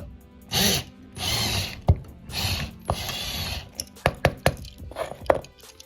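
A drill bit grinding into the rivet of a die-cast toy car's metal base in four short bursts, drilling it out to open the car, followed by several sharp clicks.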